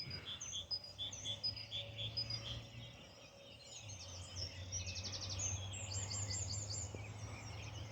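Small songbirds singing: repeated short high chirps at first, then a fast trill about halfway through and a quick run of notes near the end, over a faint steady low hum.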